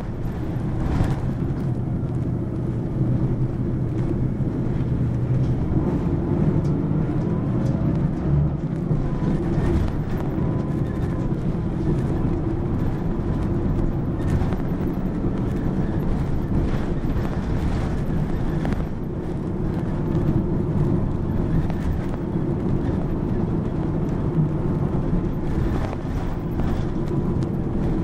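Mitsubishi Fuso PA-MK25FJ (Aero Midi MK) mid-size bus under way: its diesel engine runs steadily under a low rumble of engine and road noise that swells and eases a little.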